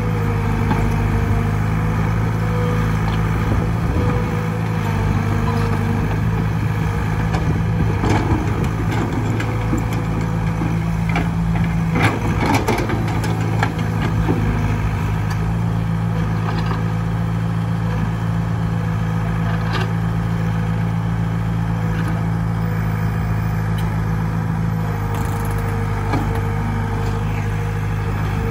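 Caterpillar E120B excavator's diesel engine idling steadily, with a few short metallic knocks and clanks around the middle.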